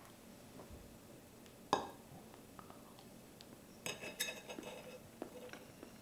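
Fork clinking against a plate while eating: a sharp tap a little under two seconds in, then a short run of ringing clinks about four seconds in and a few faint ticks after.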